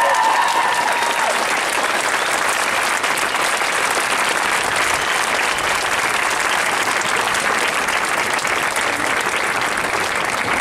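A large crowd applauding steadily, with one voice cheering briefly at the very start.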